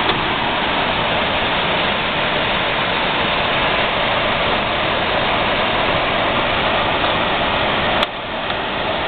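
DENSO 18,000 BTU portable air conditioner running, its fan blowing a steady rush of air. Near the end a click comes and the sound drops suddenly in level.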